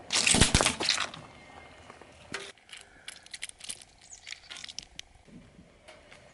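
Car tyre rolling over and crushing a rubber squishy toy filled with water beads: a loud burst of crackling and popping about a second long at the start. After it, scattered small clicks and pops for a few seconds.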